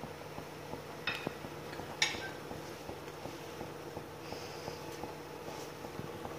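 A steel pot of potato fries boiling on a gas stove: a faint steady hum with light bubbling ticks, and two light metal clinks about one and two seconds in.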